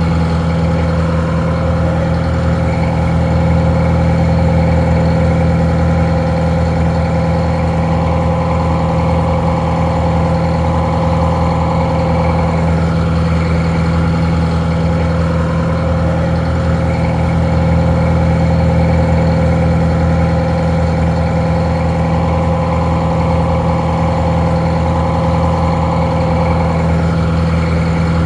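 Detroit Diesel 4-71 two-stroke diesel engine idling steadily, with a deep low hum, a little muffled.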